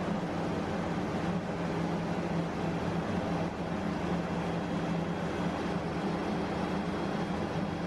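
Steady mechanical hum with a low drone, running without change.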